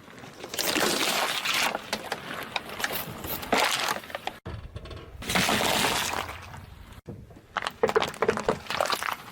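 Objects crushed under a car tyre, in three short clips: crunching and cracking with breaking glass. The clips are separated by abrupt cuts, about four and a half and seven seconds in.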